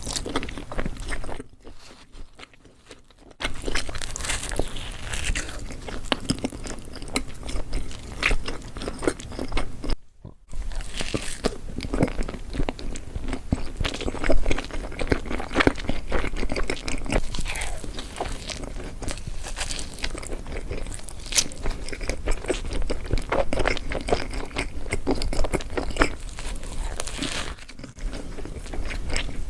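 Close-miked ASMR eating: repeated biting and chewing of cheesy food, with dense irregular bite and mouth sounds. Two brief drops in sound, about two seconds in and again about ten seconds in.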